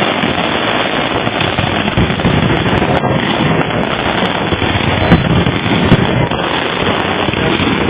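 Fireworks display: a dense, continuous barrage of bangs and crackling, with a few louder reports standing out about five and six seconds in.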